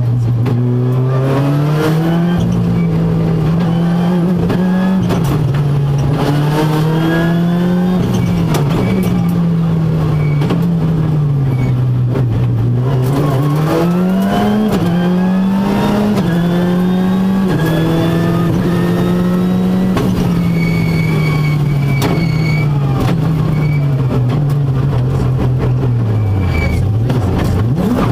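Ford Fiesta R5 rally car's turbocharged 1.6-litre four-cylinder engine heard from inside the cabin at full stage pace, revs climbing and dropping back again and again through quick gear changes. Near the end the revs fall sharply, then pick up again.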